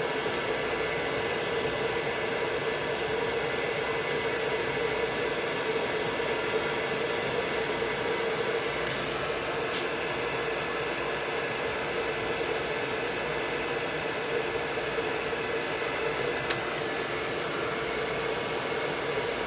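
Pet grooming dryer running steadily: a constant blowing noise with a steady hum, and a few faint ticks.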